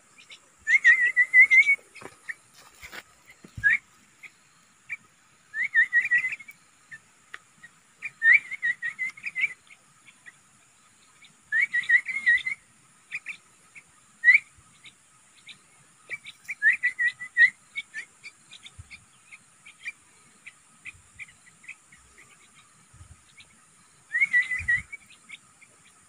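A man whistling a warbling call to lure a fledgling yellow-vented bulbul to his gloved hand. Short wavering whistled phrases of about a second each are repeated every few seconds, with single short rising chirps in between.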